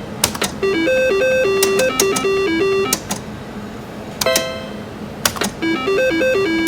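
Double Diamond slot machine's electronic reel-spin tune: a stepping beep melody plays while the reels spin, twice, with sharp clicks between the runs as a spin is started and the reels stop.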